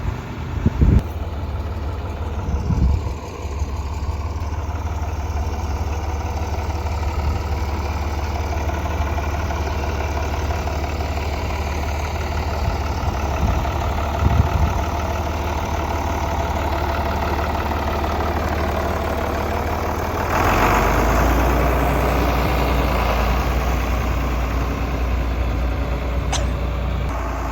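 Tractor diesel engine running steadily, with a few short knocks early on and in the middle; about two-thirds of the way through it gets louder, as if throttled up, and stays there.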